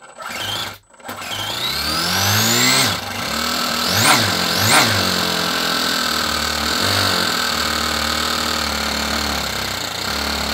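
Small nitro glow-plug four-stroke model engine started with an electric starter: a short burst of cranking, then it catches and runs with rising pitch, revs up sharply twice around four and five seconds in, and settles into a steady run.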